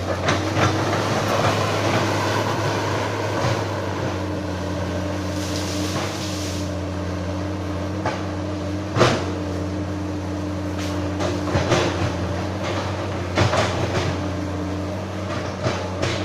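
Excavator's diesel engine running steadily, with a few sharp knocks and clanks in the second half and a brief hiss about five seconds in.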